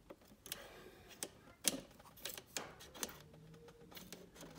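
Steel feeler gauge clicking and scraping against the clutch plates and snap ring of a 4L60E input drum during a clutch pack clearance check. It makes a handful of light metallic clicks, the sharpest a little under two seconds in.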